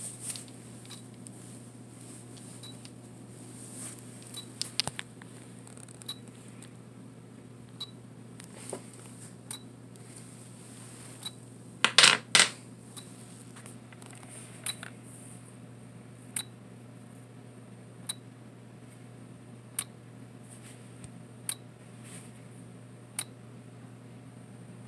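Olympus Camedia C-4040Z digital camera clicking about once every second and a half to two seconds as it keeps trying to retract its lens and cutting out again on a battery voltage too low to finish. About halfway through comes a louder clatter of AA batteries being handled and set down on the table.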